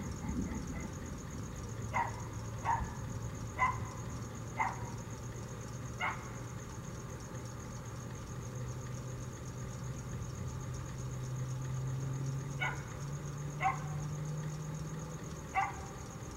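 A dog barking, about eight short single barks in two runs a second or so apart, with a steady low hum under them that rises a little in pitch near the end.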